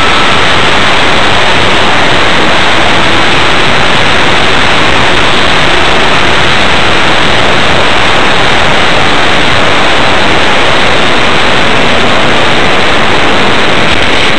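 Loud, steady wind buffeting on a small onboard camera's microphone aboard an RC plane in high wind, a hiss-like rush with no motor tone. A faint whine dies away about half a second in.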